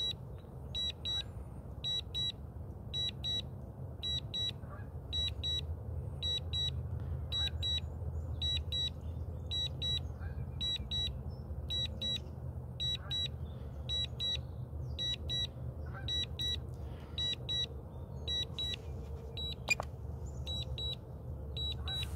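DJI Mini 2 remote controller sounding its low-battery return-to-home warning: pairs of short, high-pitched beeps repeating steadily, about three pairs every two seconds, over a low rumble of background noise.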